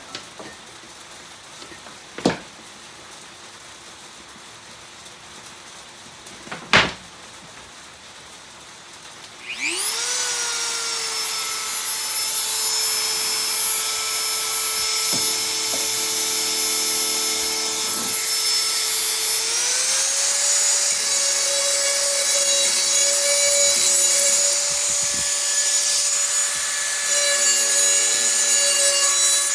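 Two sharp knocks, then a Dremel rotary tool switches on about a third of the way in and spins up to a steady high-pitched whine. A grinding rasp comes from the bit working a metal edge being sharpened. About ten seconds later the whine steps up in pitch and holds there.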